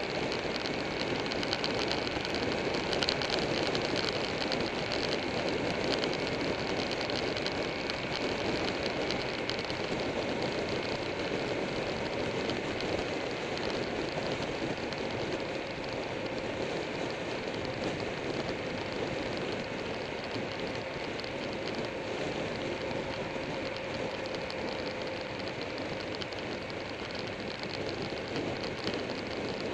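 Steady wind rush on a motorcycle-mounted camera at riding speed, with the motorcycle's engine and tyre noise running underneath.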